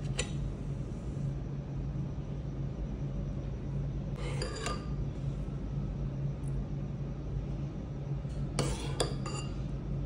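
Metal spoon clinking against a ceramic bowl and a glass baking dish as caramel sauce is scooped and poured. The clinks come in small clusters, about four seconds in and again near the end, over a steady low hum.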